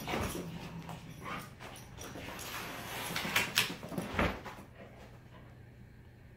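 Large black dog whining and whimpering, mixed with scuffling and a few sharp, loud sounds about three and a half to four seconds in; after that it goes quiet.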